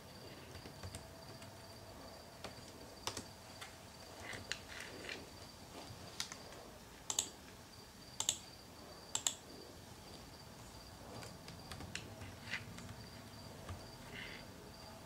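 Computer keyboard typing: scattered single keystrokes, with a few louder paired clicks about seven to nine seconds in. A faint steady high whine runs underneath.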